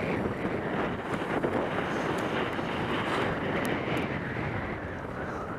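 Steady rush of wind over the microphone mixed with the hiss and scrape of skis sliding over packed, groomed snow during a downhill run, easing slightly near the end.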